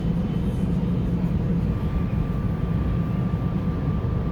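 Steady low rumble of a SEPTA Silverliner V electric commuter train running, heard from inside the passenger car. A faint steady high tone joins about two seconds in.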